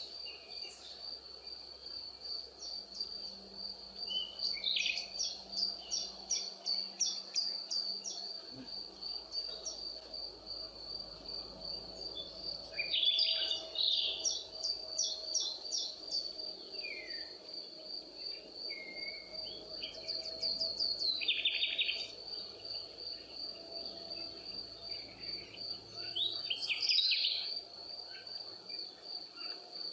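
Nature ambience: an insect trilling steadily at a high pitch, with birds calling in short runs of quick notes every few seconds.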